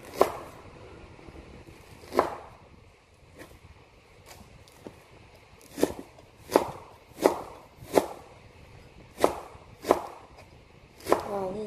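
Knife chopping fresh bamboo shoots on a cutting board: about ten sharp chops at uneven intervals, some close together. Near the end comes a brief metallic clank that rings.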